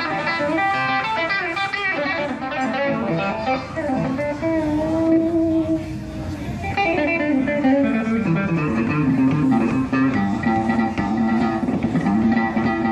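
Electric guitar, a black Les Paul-style solid body, playing a live blues-rock solo, with notes that bend up and down in pitch.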